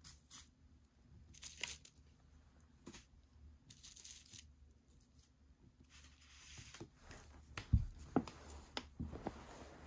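Plastic rustling and crinkling as items are handled and slid over a bubble-wrap-covered table, with scattered small clicks and one sharper knock about three-quarters of the way through.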